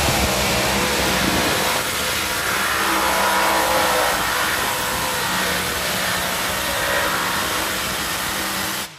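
Pulling tractor engine running at high revs, loud and steady, cutting off abruptly near the end.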